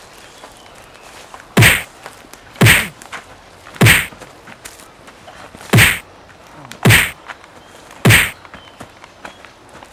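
Six loud, sharp whacks of a punch sound effect, each the same hit, spaced one to two seconds apart.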